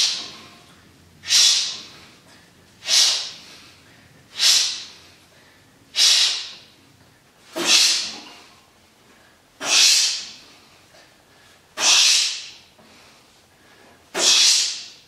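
A man's sharp, forceful breaths, one with each repetition of light warm-up barbell curls. Nine breaths come about every second and a half, spacing out to about two seconds near the end.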